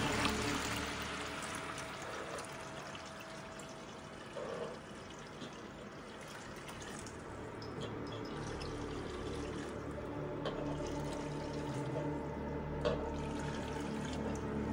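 Aquarium water running out of a gravel-vacuum siphon hose and pouring into a plastic bucket with a steady trickling splash.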